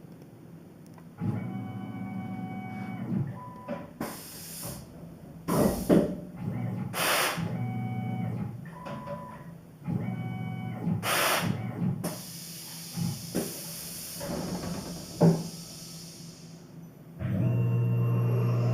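Tormach PCNC 1100 CNC mill running: the axis motors whine in short moves, broken by several short blasts of hissing air. Near the end a steady low hum comes on and holds.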